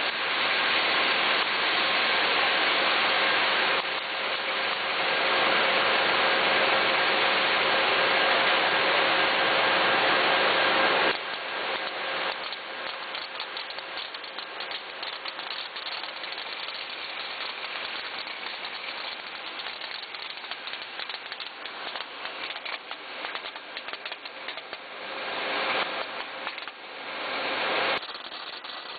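Machinery of a jalapeño-slice sorting line running, a vibratory conveyor feeding a laser sorter. For about eleven seconds there is a loud steady hiss with a hum; then it changes abruptly to a quieter, dense rattle of rapid clicks.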